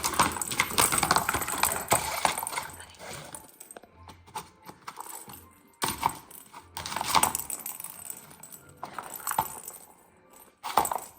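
A cat toy being pawed at by a dog: a fast, irregular clicking and rattling of its loose balls. It comes in several bursts with short pauses.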